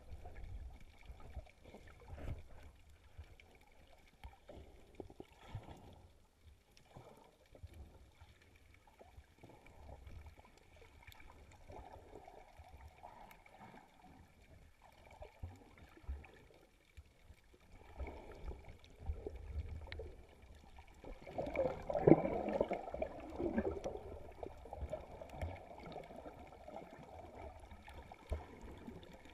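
Muffled underwater sound from a waterproof action camera's housing: irregular water sloshing and low rumble from surge over the reef, with a louder rush of water and bubbling about two-thirds of the way through.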